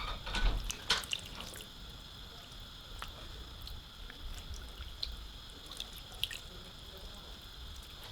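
A few light knocks in the first second, then scattered small drips and ticks over a faint steady high hum.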